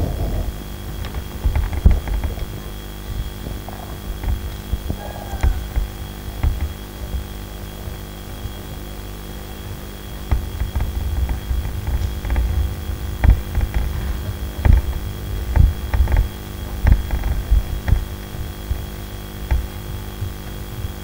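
Steady electrical hum through the sound system, with irregular low thuds of footsteps on the stage as a line of students files past. The thuds come thickest in the second half.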